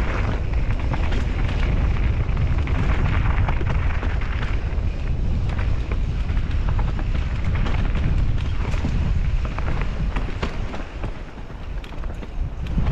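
Wind buffeting a GoPro's microphone as a mountain bike rolls down a gravel and dirt trail, a heavy steady rumble. Over it come the crunch of the tyres on loose ground and frequent short clicks and rattles from the bike over bumps. The rumble eases briefly a little before the end.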